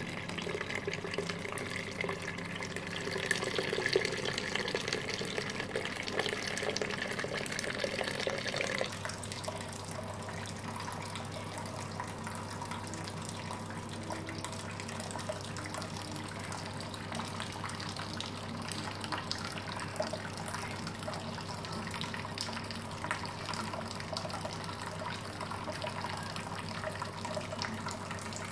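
Wort running from a plastic mash bucket's tap and splashing into a plastic measuring jug, changing about nine seconds in to a steadier stream of wort pouring from the tap into a stainless steel kettle during sparging.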